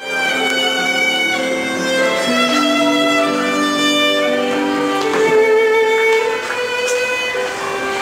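Solo violin played with a bow: a melody of held notes, each lasting roughly half a second to a second before moving to the next pitch.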